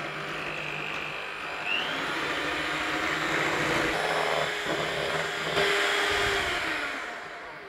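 Electric hand mixer running, its twin beaters whipping cream in a stainless steel bowl as the cream thickens. The motor's hum shifts pitch a little and winds down near the end.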